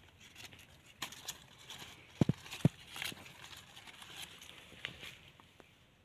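Rustling and crackling of leaves, fibrous husks and dry litter as sprouted betel nut seedlings are handled and set down on the ground, with two sharp knocks about half a second apart a little over two seconds in.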